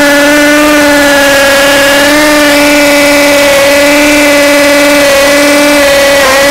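Cordless three-function drill hammer-drilling into a concrete block with a masonry bit: a loud, steady, high-pitched buzz, dipping briefly in pitch near the end.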